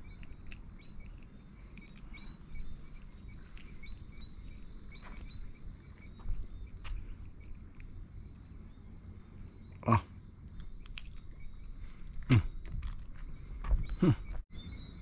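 A dusk chorus of many small high-pitched chirps repeating over and over from small wild creatures, over low steady background noise. A few louder short knocks come about two-thirds in and near the end.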